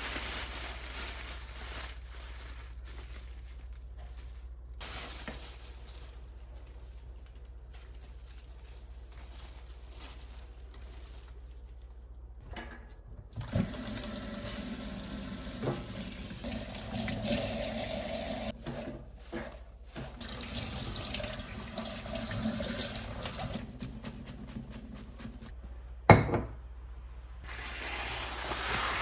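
Water running from a kitchen tap into a sink: softer at first, then a fuller, louder flow from about halfway. One sharp knock near the end.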